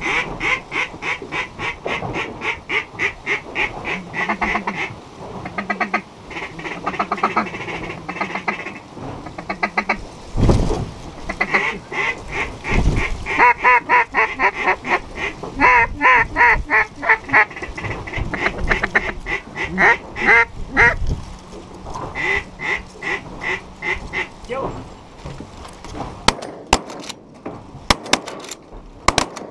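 Mallard duck call blown in long runs of rapid quacks, about four or five a second, with short pauses between runs, calling to circling mallards. Two dull thumps come about ten and thirteen seconds in.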